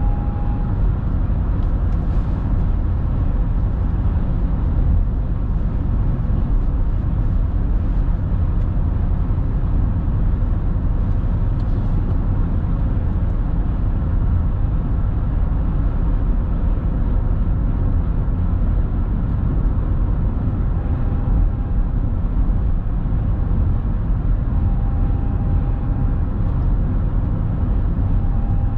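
Steady low rumble of road and engine noise from a car driving, heard from inside the cabin.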